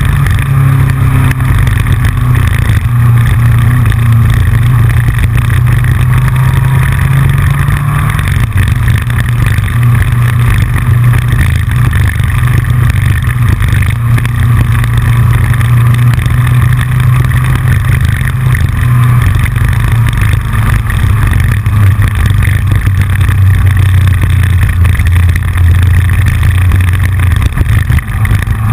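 Yamaha FJR motorcycle's inline-four engine running steadily at riding speed, with rushing noise and a constant clicking rattle from a GoPro loosely mounted on the front fairing. The engine note drops a little near the end.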